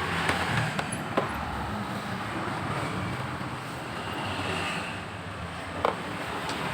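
Steady background hum of road traffic, with a few short sharp clicks, the loudest near the end.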